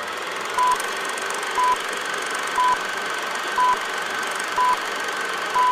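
Old-film countdown leader sound effect: a steady crackling projector-and-film hiss with a short, high beep once a second, six beeps in all.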